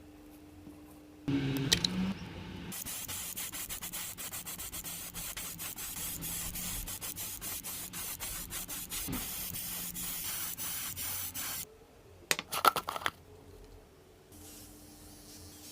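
Sanding: rapid abrasive rubbing strokes for about nine seconds, stopping abruptly, with a loud clatter just before it starts and a few sharp knocks soon after it stops.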